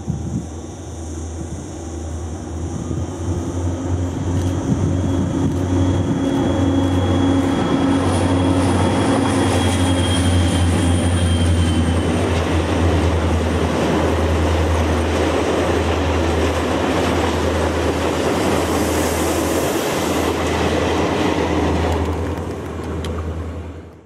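Two Renfe class 333.3 diesel locomotives working in multiple, hauling a train of cement tank wagons past at close range: a deep, steady engine drone that grows louder over the first few seconds as they approach, then the wagons rolling by with a dense steady rumble. A thin high whine runs for a few seconds about a third of the way in, and the sound fades out at the very end.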